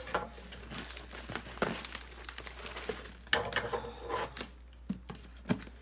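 Cardboard shipping box being opened by hand: packing tape tearing and the cardboard flaps crinkling and rustling in irregular bursts, with a few light knocks.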